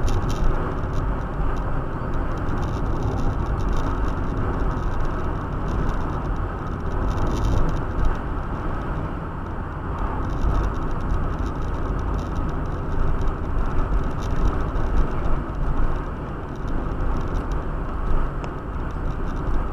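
Steady road noise inside a moving car's cabin: engine and tyre rumble while driving at highway speed.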